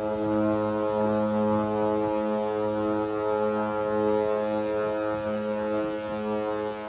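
A cruise ship's horn sounding one long, deep blast that starts suddenly and holds steady, as one of the horn signals traded between ships in a sailaway horn battle.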